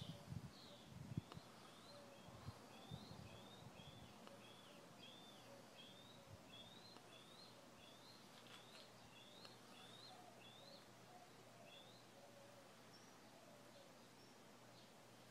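A small bird chirping faintly, a run of short high notes about two a second that stops a few seconds before the end, with a few low thumps in the first seconds.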